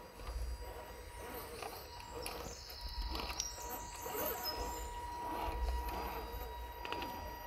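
Radio-controlled scale crawler's small electric drive motor and steering servo whining in short spurts, with scattered small clicks.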